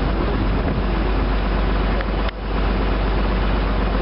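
Motor riverboat's engine running steadily as a low drone under a wash of water and wind noise, with a brief dropout just after two seconds in.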